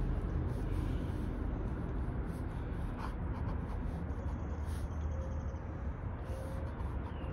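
Ink pen scratching on sketchbook paper in short, irregular strokes, over a steady low rumble.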